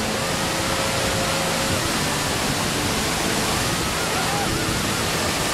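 Waterfall heard up close in its spray: a steady, loud rush of falling water.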